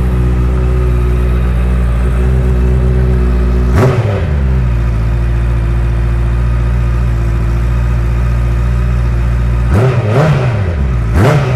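Honda CBR650R's inline-four running at idle through an Akrapovič full-system exhaust while it warms up, with a quick throttle blip about four seconds in and two more near the end.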